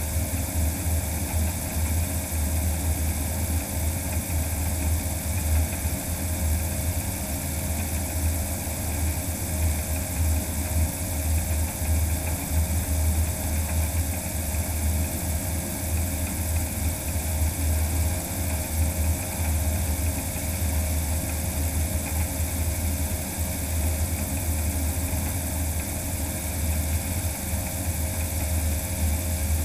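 The all-electric DHC-2 Beaver floatplane, with its magniX magni500 electric motor and propeller, running at speed on its floats across the water. It is heard as a steady drone with a couple of held tones, over a strong, unsteady low rumble of wind at the wing-mounted microphone and the rush of the floats' spray.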